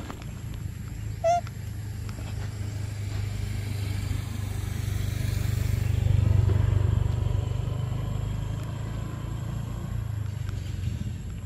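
Low rumble of a vehicle passing, swelling to its loudest about halfway through and then fading. About a second in there is one short, high-pitched call.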